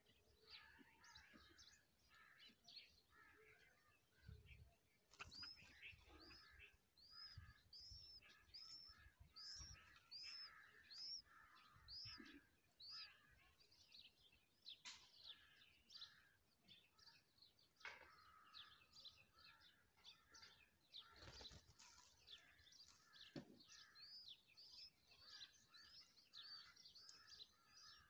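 Faint bird chirping: a long run of short, high chirps at about two a second, with lower twittering calls underneath and a few soft low thumps.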